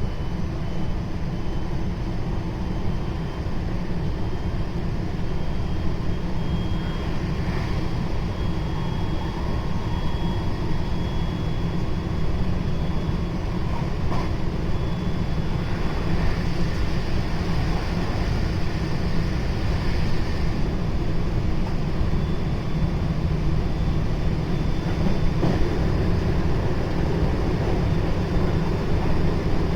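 JR West 223 series 0 electric train running at speed: a steady rumble of wheels on rail, with a faint high steady whine for much of the time.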